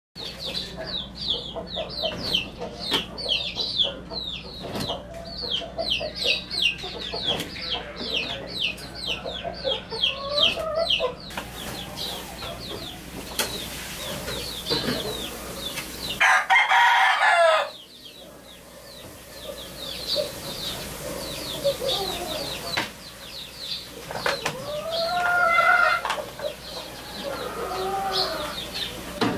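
Chickens: a rooster crowing, loudest about halfway through and again near the end, over many short, high chirps repeating several times a second.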